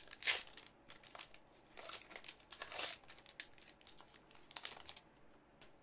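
Foil wrapper of a hockey card pack being torn open and crinkled by hand, in irregular bursts of crackling.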